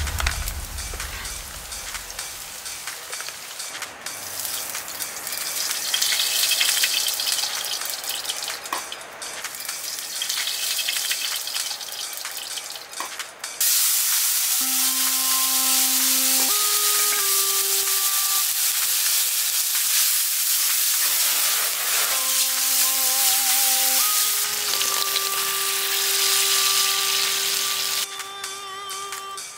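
Pork pieces frying in oil in a pan, stirred with a wooden spatula. About halfway through, chopped tomatoes go into the hot oil with a sudden loud sizzle that carries on steadily.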